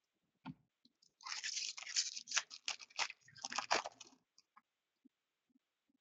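Crinkling and tearing of a foil hockey-card pack wrapper: a dense crackly rustle of about three seconds starting about a second in, with a few light clicks and rustles before and after.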